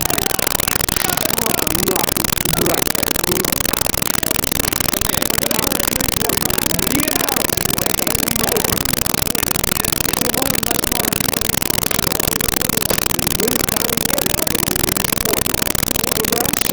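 Loud, steady distorted hiss from an overloaded recording, with the voices of a crowd faintly audible underneath.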